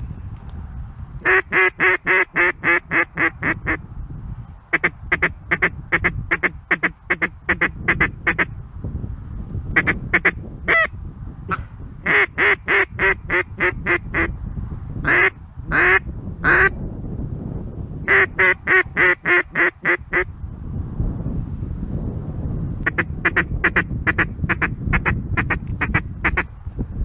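Duck call blown close by in runs of quick, evenly spaced quacks with short pauses between, and three longer drawn-out notes near the middle, calling to a flock of incoming ducks. Wind rumbles steadily underneath.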